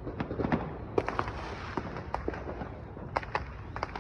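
Distant fireworks and firecrackers going off in many directions: a scattered run of sharp pops and cracks, several a second at times, none of them close.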